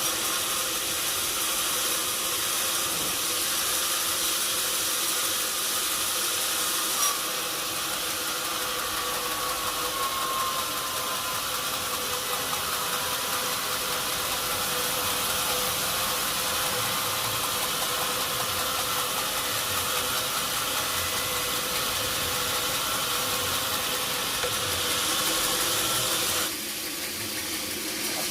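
Sawmill machinery running steadily, a constant hum under a strong hiss; the hiss drops off suddenly near the end.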